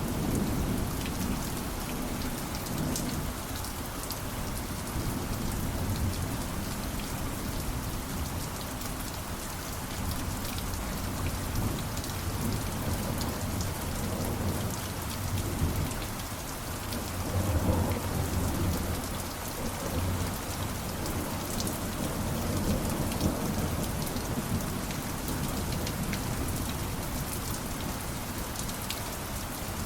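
Steady rain falling, with low rolling thunder underneath that swells about two-thirds of the way through.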